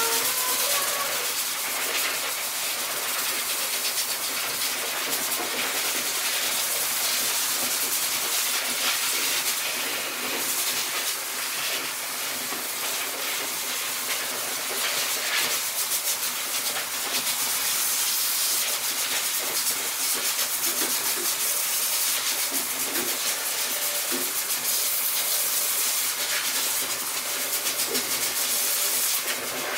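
Corded electric grooming clippers running, the blade shearing through a Husky's thick double coat with a steady hiss.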